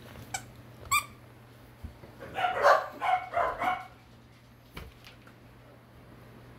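Corgi puppy barking in a high, yappy voice: one short yip about a second in, then a quick run of four or so barks between about two and four seconds in.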